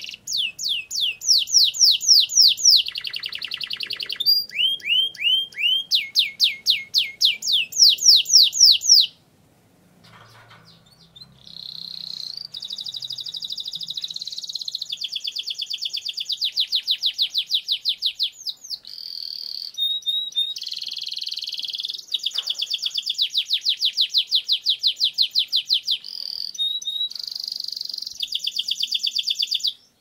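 Domestic canary in full song, singing long rolling trills of fast repeated sweeping notes. The song breaks off for about two seconds near the middle, then starts again with more long rolls.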